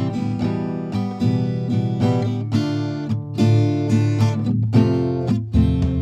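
Background music: strummed acoustic guitar chords, restruck every half second or so.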